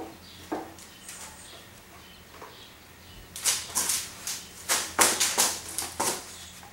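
A few light knocks, then a rapid run of about a dozen loud clunks and clatters in the second half as the mower engine is handled and set onto the deck.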